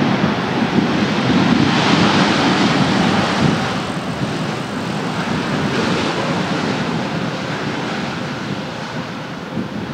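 Wide-body jet airliner's engines, a loud rushing roar that eases off gradually after about three and a half seconds, with wind buffeting the microphone.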